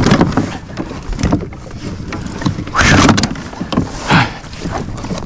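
Handling noise in a plastic fishing kayak: a metal measuring board and a large snakehead being shifted about, with irregular knocks and rustles.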